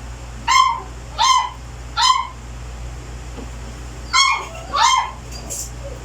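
Dog yipping: five short, high-pitched yips, three within the first two seconds and two more about four seconds in.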